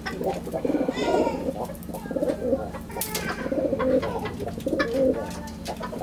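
Puter doves cooing repeatedly in low, pulsing calls, with a few light metallic clicks of leg rings being handled.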